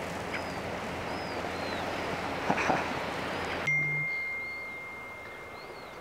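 Wind and gentle surf hiss on an open beach, with faint short chirps about once a second. A little over halfway through, this background cuts off abruptly and a single steady high pure tone, like a beep, holds in its place over a quieter background.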